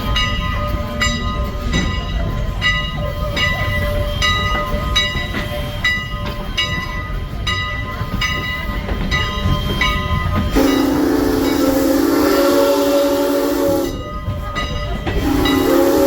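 Steam locomotive #89's bell ringing steadily, about two strokes a second, over the low rumble of the moving train. About ten seconds in, the locomotive's chime steam whistle sounds a long blast, then a second blast begins near the end.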